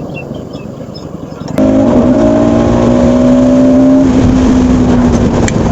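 Bajaj Pulsar NS200's single-cylinder engine running hard under way, with wind rush over the microphone; about a second and a half in it suddenly gets much louder and settles into a steady engine note that eases slightly in pitch toward the end.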